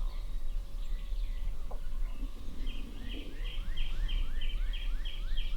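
A songbird singing a rapid run of identical repeated notes, about three a second, starting a little before halfway, over a steady low rumble.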